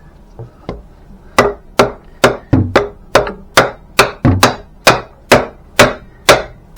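About a dozen sharp blows at roughly two a second, striking a wooden 2x4 to drive a muffler insert into a steel side pipe until it seats.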